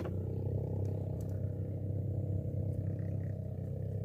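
A small engine running steadily at an even speed, a low hum with a few faint clicks.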